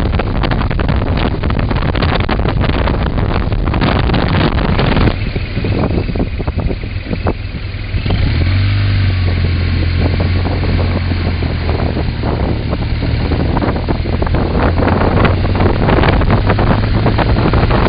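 Motorcycle riding at road speed, recorded on the bike: wind buffeting on the microphone that eases about five seconds in, and from about eight seconds a steady low engine drone.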